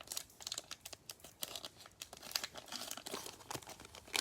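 Cellophane wrapper of a Prizm football cello pack crinkling and tearing as it is opened, a quick string of crackles.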